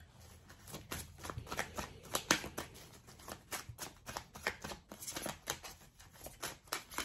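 A deck of cards being shuffled by hand: a steady run of quick, irregular papery snaps and flicks.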